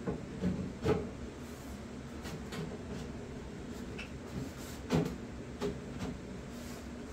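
Thin steel flag panel knocking against a wooden box frame as it is lowered and shifted into place: a few sharp knocks in the first second and a louder pair about five seconds in.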